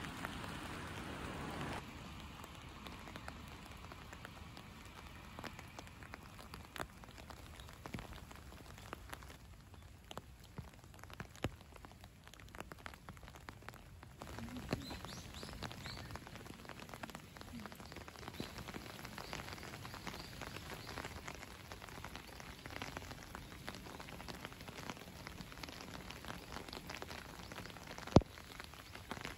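Light rain: a steady patter of small drops on wet ground, with one sharp tap near the end.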